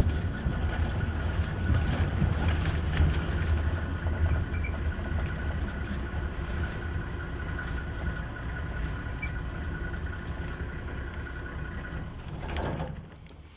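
Vehicle driving over rough bush ground: a steady low engine and road rumble with a thin steady whine above it, falling away sharply about 13 seconds in.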